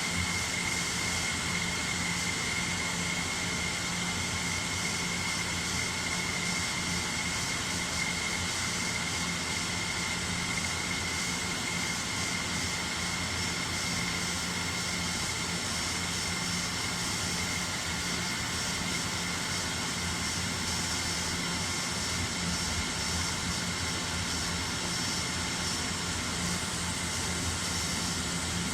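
Nakamura-Tome Super NTM3 CNC turning center running its program: a steady machine hiss with a constant whine and a low hum, unbroken throughout.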